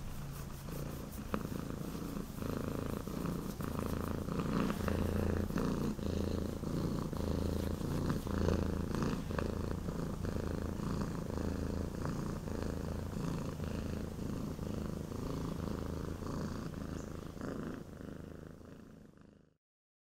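Domestic cat purring steadily in a pulsing rhythm as it is scratched under the chin, fading out near the end.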